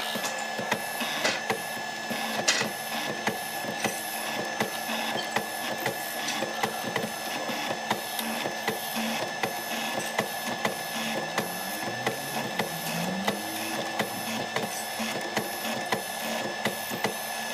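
Mortising machine cutting a mortise in a hardwood board: the motor runs with a steady whine while the chisel chops into the wood with a rapid, uneven series of sharp clicks and knocks.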